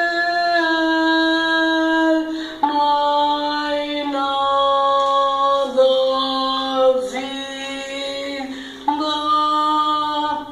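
Music: a slow melody of long held notes, each lasting one to two seconds before stepping to a new pitch.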